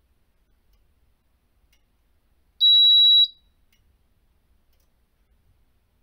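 Fire alarm control panel's built-in buzzer giving one steady, high-pitched beep lasting under a second, about two and a half seconds in, as the panel's zone indication is cleared after a detector test.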